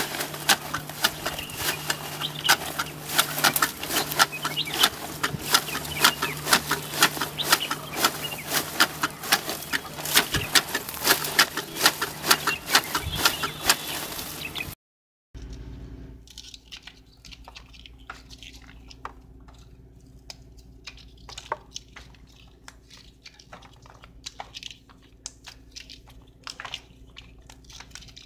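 Tea leaves being plucked by hand: a dense, quick run of snapping and rustling. After a short break about halfway, fainter, sparser snaps of pea pods being split open and shelled by hand over a low hum.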